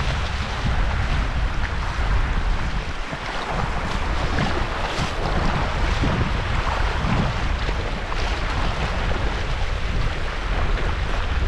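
Spring runoff water rushing steadily, with wind buffeting the microphone in an uneven low rumble.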